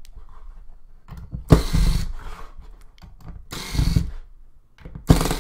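Small electric screwdriver running in three short bursts of about half a second each, backing the screws out of a plastic device case, with light clicks between the runs.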